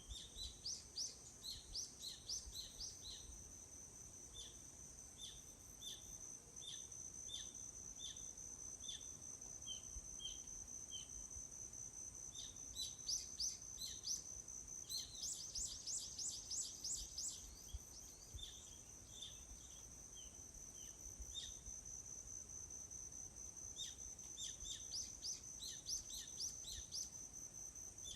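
Forest ambience. Small birds are singing: one repeats a short chirp about every three-quarters of a second, and others break in with quick bursts of rapid high notes. Underneath runs a steady high-pitched buzz of insects.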